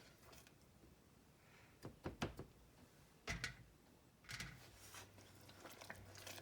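Near silence broken by a few faint knocks and scrapes of a spoon in a saucepan of melting butter and brown sugar, about two seconds in, again around three and a half seconds, and once more near four and a half seconds.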